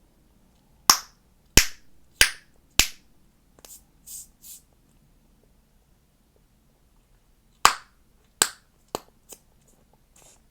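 Chewing gum being snapped and popped in the mouth: a run of four sharp, loud pops about two-thirds of a second apart, a few softer smacks, then another run of four pops near the end.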